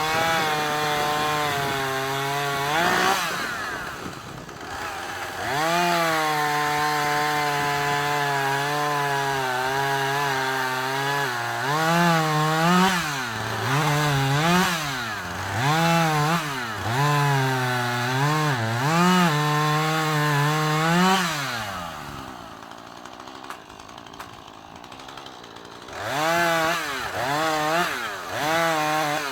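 Husqvarna 440e two-stroke chainsaw running at high revs. Its pitch dips and recovers again and again, as it does when it is loaded in cuts through wood. Near the end it falls to a low, quiet idle for a few seconds, then revs up again.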